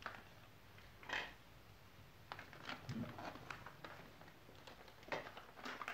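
Scattered light knocks and clicks of the plastic body of a small canister vacuum cleaner being handled and moved about, with the motor not running.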